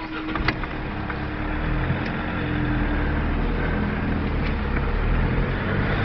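Car engine and road noise heard from inside the cabin as the car pulls away and drives over a level crossing, growing louder, with a few clicks near the start.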